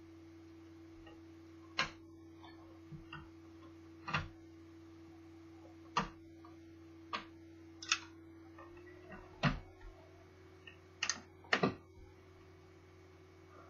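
Irregular sharp clicks and taps from a laptop's plastic casing parts and small tools being handled during disassembly, about ten over the stretch, with a steady hum underneath.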